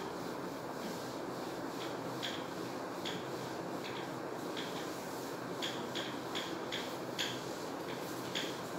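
Whiteboard duster wiping across a whiteboard: a series of short rubbing strokes, coming quicker in the second half, over a steady background hiss.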